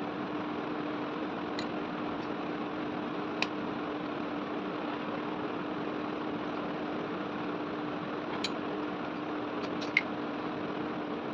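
A steady motor hum with a constant low tone, broken by a few light, sharp clicks.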